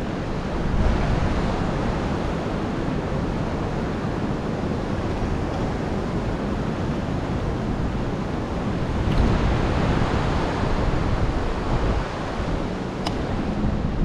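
Wind buffeting the microphone, a steady rushing noise with ocean surf mixed in. There are two faint clicks, about nine seconds in and near the end.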